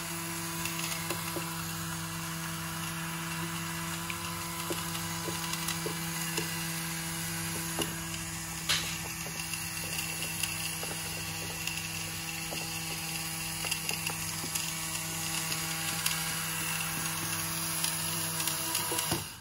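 A small motor running steadily with a level hum and scattered light clicks, cutting off suddenly near the end.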